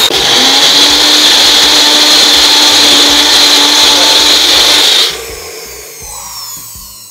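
Electric mixer grinder (mixie) running at speed with a small jar of coriander, mint, green chilli, ginger, garlic and water, blending the green chutney to a paste. The motor runs steadily and loud, then is switched off about five seconds in and spins down.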